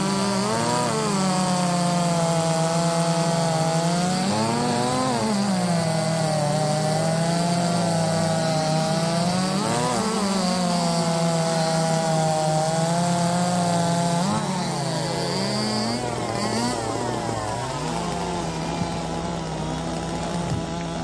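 Two-stroke chainsaws running flat out and cutting through a log. The engine pitch sags under load in the cut and jumps back up each time the chain comes free between cuts. The sound is a little quieter from about two-thirds of the way in.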